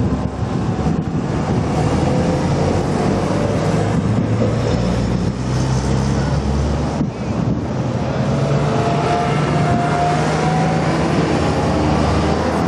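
Porsche cars driving past one after another, their engines running and pulling away. From about two-thirds of the way through, the engine note rises in pitch as the next cars accelerate out.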